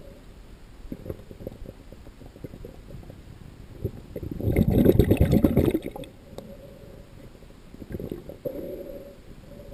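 Water gurgling and crackling around a camera held underwater just below the surface, with a louder burst of bubbling lasting about a second near the middle.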